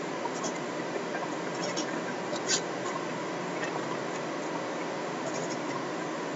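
A few faint computer mouse clicks, scattered and irregular, the loudest about two and a half seconds in, over a steady hiss.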